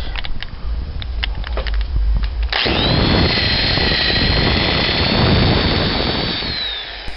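A few clicks and knocks, then about two and a half seconds in an electric drill with a 3/4-inch bit starts boring the lock cylinder hole in a wooden door. It runs with a steady high whine, then winds down and fades near the end.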